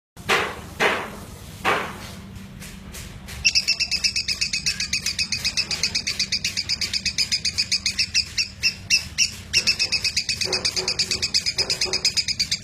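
Lovebird singing its long, rapid chattering trill ('ngekek'), fast evenly repeated high notes that start about three and a half seconds in and keep going without a break. A few louder single calls come before it.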